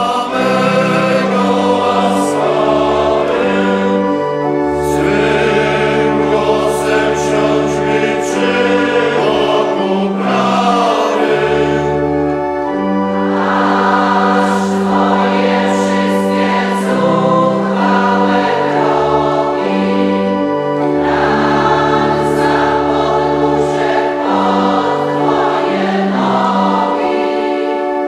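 Choir of voices singing a Polish vespers chant with pipe organ accompaniment; the organ holds long bass notes that change every few seconds under the sung melody.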